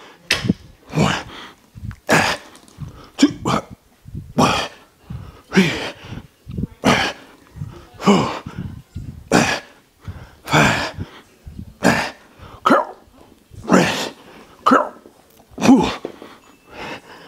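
A man's hard, forceful exhalations, some with a grunt, about one a second: effort breathing through repeated barbell lifts.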